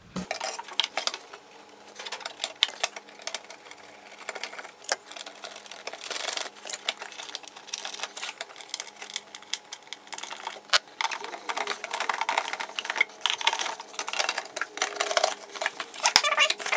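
Irregular light clicks and metallic taps as a thin sheet-metal cabin air filter bracket is handled and fitted back into place over the filter housing.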